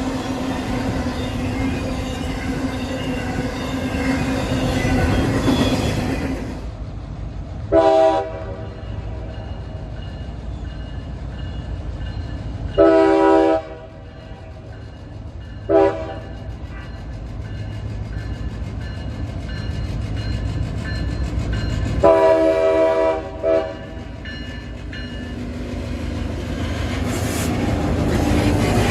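Diesel freight locomotive rumbling, then its air horn sounding five blasts of mixed length, short and long, over the continuing rumble of the train.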